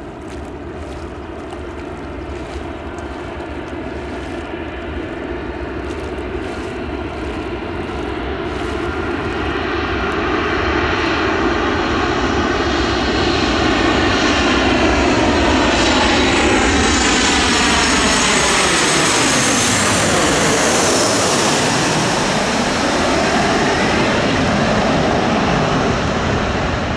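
Boeing 737-800's CFM56-7B turbofan engines on final approach, a jet roar with a high whine that grows steadily louder as the airliner closes in. The whine sweeps down in pitch as it passes by, and the sound eases slightly near the end as it descends toward the runway.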